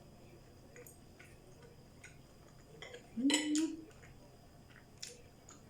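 Cutlery clinking on a plate during a meal: a few light taps, then a louder clatter about three seconds in together with a short hummed "mm", and one more click near the end.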